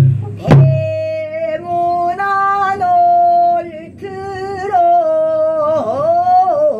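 Female pansori singer singing long held notes broken by short pauses, with a deep swoop down and back up in pitch near the end. A buk barrel drum is struck once about half a second in.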